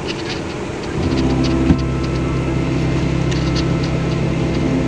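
Rain ticking on a car, heard from inside the cabin. About a second in, a steady low hum comes in under it and takes over as the louder sound.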